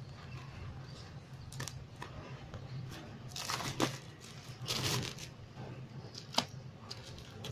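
Plastic parcel wrapping crinkling and tearing as hands pull it open, in several short bursts, over a low steady hum.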